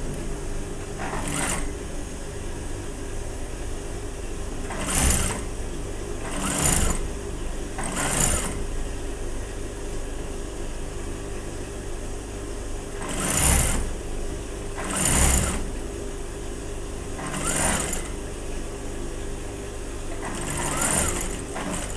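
Industrial sewing machine with its motor humming steadily, broken by about eight short runs of stitching, each under a second long, as a lining piece is sewn on.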